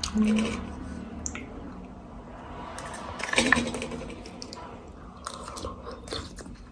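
Eating kulfi ice cream from a small paper cup with a spoon: scattered spoon clicks and scrapes against the cup, and wet mouth and chewing sounds. A short hummed "mm" comes just after the start, and a louder spoon-and-mouth sound about three and a half seconds in.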